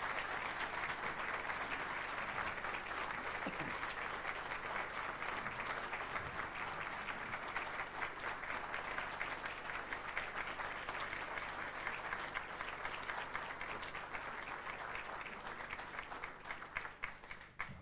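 Audience applauding: a long, steady round of clapping from a roomful of people that thins out and stops near the end.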